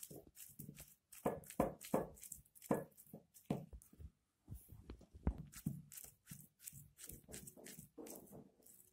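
Knife slicing a peeled banana into small rounds, the pieces dropping into a glass bowl: a faint, irregular run of soft clicks and taps.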